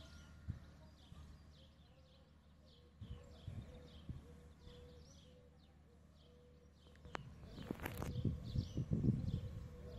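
Small birds chirping repeatedly over a faint steady hum. From about seven seconds in, low buffeting rumbles of wind on the microphone grow louder for a couple of seconds, with a sharp click at their start.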